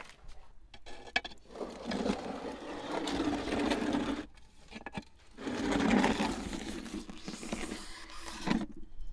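Unglazed clay pot scraping over the ash-covered brick floor of a wood-fired oven as it is dragged out with an iron hook, in two long drags.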